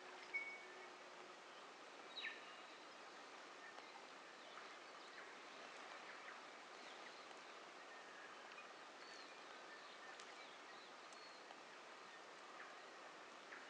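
Faint bird calls over a quiet, steady natural background hiss: a short whistle about half a second in, a falling call a couple of seconds in, a few brief high notes later on, and another falling call at the end.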